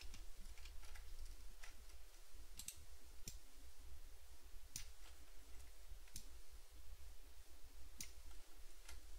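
Faint, scattered computer mouse clicks, irregularly spaced a second or so apart, over a low steady hum, as the 3D view is zoomed and turned in Blender.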